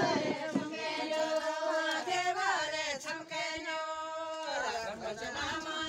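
Group of voices singing a folk song, with long held notes, one held steadily a little past the middle.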